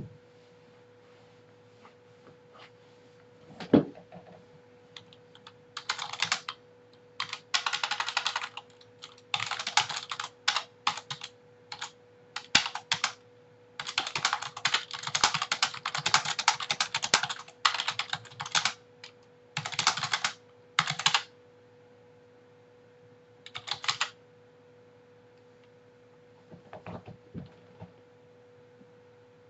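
Computer keyboard typing in bursts of quick keystrokes, with pauses between groups. One single louder click about four seconds in, and a faint steady hum underneath throughout.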